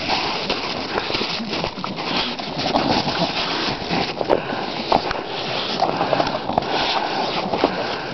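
English bulldogs tussling in snow right at the microphone: continuous rough scuffling with many small irregular knocks and crunches.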